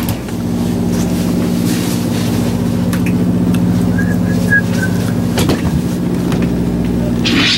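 Steady low motor hum, with a few faint short high beeps about halfway through. Near the end a high hiss suddenly comes in over it.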